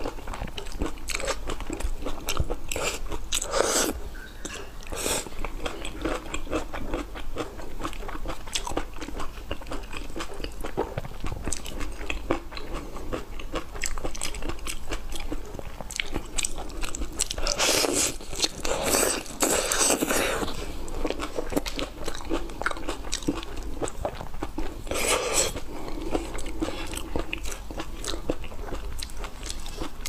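Close-miked eating of raw shrimp marinated in chili sauce: biting, chewing and crunching with many small clicks, and a few louder bursts about a third of the way in, around the middle and later on.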